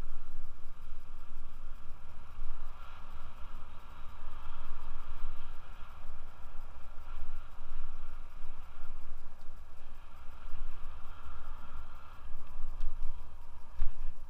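Wind buffeting the microphone of a helmet-mounted camera, a rumble that swells and fades, over the steady hiss of a Scott Aspect 770 mountain bike's tyres rolling on asphalt. A few light clicks near the end.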